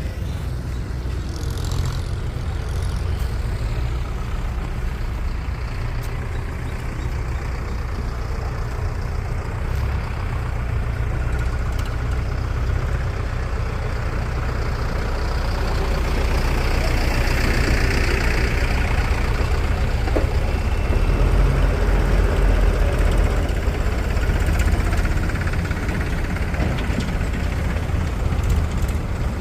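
Heavy diesel engine running steadily, getting louder for several seconds past the middle, with a brief hiss partway through.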